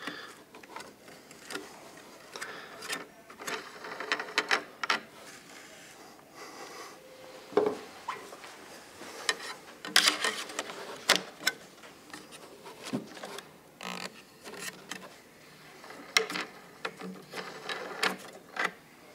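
Plastic propellers being twisted off a Yuneec Typhoon Q-500 quadcopter's motor hubs and handled: scattered light clicks, taps and plastic rubbing on plastic.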